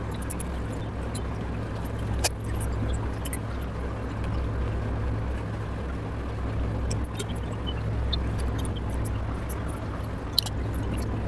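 Close-up eating sounds: irregular wet mouth clicks and chewing over a steady low hum.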